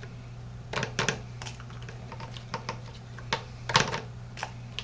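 Irregular light clicks and taps of plastic shotgun shell hulls and wads being handled, a few louder clacks among them, over a steady low electrical hum.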